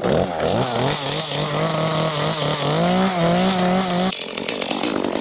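Small Echo two-stroke chainsaw running. Its engine note wavers with blips of the throttle, holds steady, then climbs in pitch about three seconds in. The note breaks off abruptly just after four seconds and the saw goes back to uneven revving.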